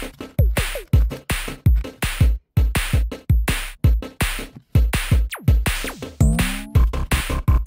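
Electronic background music with a fast drum-machine beat: punchy kick drums and choppy full-range hits, a falling sweep about five seconds in, then a short rising synth figure.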